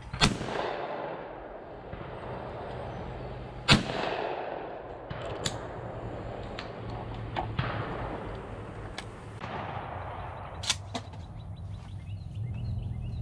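Two shotgun blasts from an SKB over-under shotgun about three and a half seconds apart, each with a short echoing tail, the second the louder. Several fainter sharp clicks and cracks follow later.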